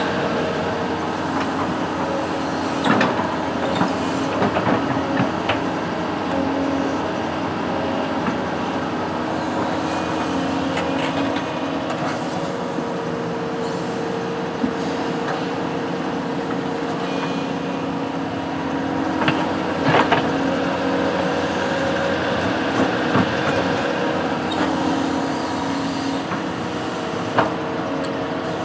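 Construction machine's engine running steadily, with occasional sharp metallic clanks and knocks, a cluster about a third of the way in and more later.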